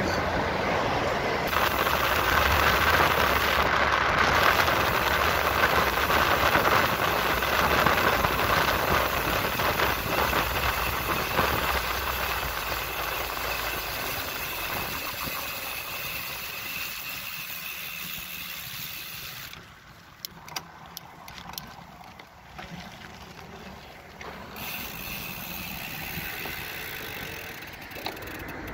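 Steady road-traffic noise from a busy multi-lane highway alongside, mixed with wind noise from riding a bicycle. It fades over the second half as the road gets quieter, with a few light clicks about two-thirds of the way through.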